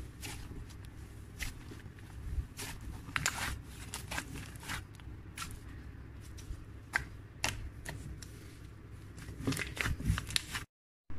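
Hands squishing, pressing and stretching a soft, creamy slime, making irregular small sticky clicks and crackles. The sound cuts out completely for a moment near the end.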